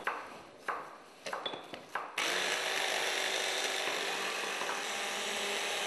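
A few light knocks, then about two seconds in a small electric kitchen appliance motor starts suddenly and runs steadily with a constant hum.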